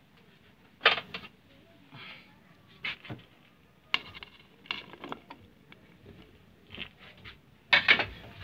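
Sliced vegetables tipped from a plate into a metal cooking pot: a handful of separate knocks and clatters, some with a brief metallic ring, the loudest cluster near the end.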